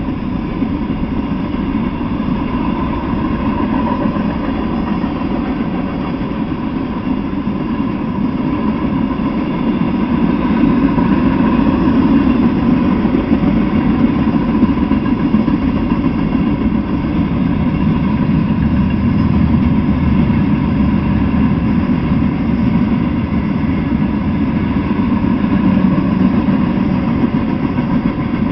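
A freight train's covered hoppers, tank cars and gondolas rolling past on steel wheels: a steady, loud rumble on the rails that swells a little now and then.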